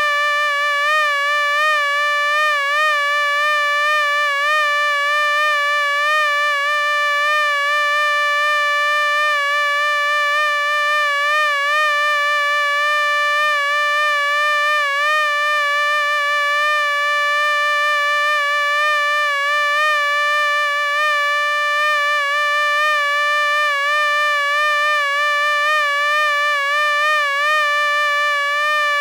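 Mosquito's wings whining in a continuous high-pitched buzz, wavering slightly in pitch.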